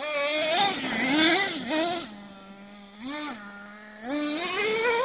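Small race-fuel engine of a remote-control car idling and being revved in repeated blips, its pitch sweeping up and falling back several times between steady idle stretches.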